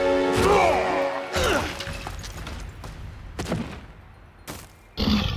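Cartoon action soundtrack: dramatic music dying away under a string of sharp impact and crash sound effects, with a sudden loud hit near the end.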